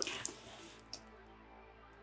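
Faint rustling as a boxed product is handled and pulled out of a shopping bag, with a light tap about a second in.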